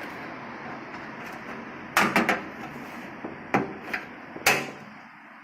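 Thin metal motherboard I/O shield being pressed into the PC case's rear cutout, its edges snapping into place. There is a quick cluster of sharp clicks about two seconds in, then three more single clicks over the next few seconds.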